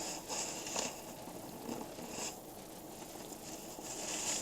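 Faint, intermittent rustling and rubbing of paper, like napkins or food wrappers being handled while a spill is wiped up, with a few short scrapes.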